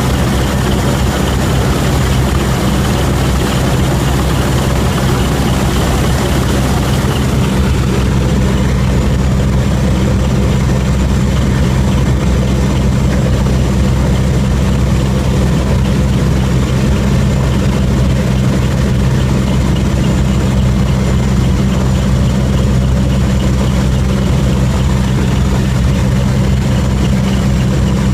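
Military helicopter in flight heard from inside its cabin: a loud, steady low drone of engines and rotors, with wind rushing through the open rear ramp. The high rushing hiss eases about seven seconds in, leaving the low hum.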